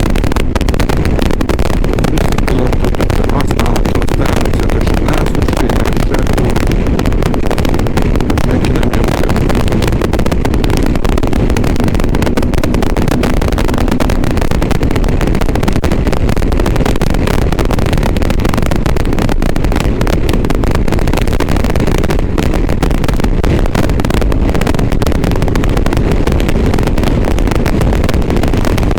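Motorcycle riding along at a steady pace: engine and wind on the microphone blend into a loud, dense, distorted rumble that stays even throughout. This is the bad sound a GoPro Hero 7 Black gives through an external microphone.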